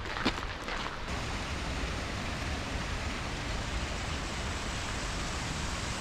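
Waterfall rushing with a steady, dense noise of falling water that sets in about a second in, after a couple of footsteps.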